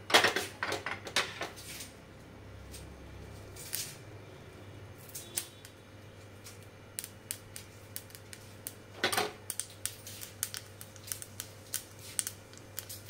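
Mustard seeds spluttering in hot oil in a small steel frying pan: scattered sharp pops that come more often toward the end as the seeds begin to crackle, the sign that the oil is hot enough for the tadka. Metal clatter of the pan and its gripper tongs near the start and again about nine seconds in.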